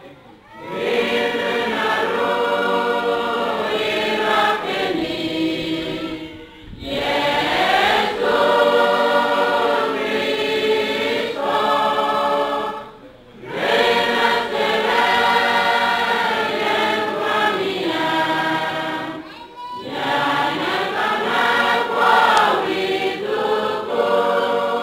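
A choir singing in long phrases of about six seconds, each followed by a short pause.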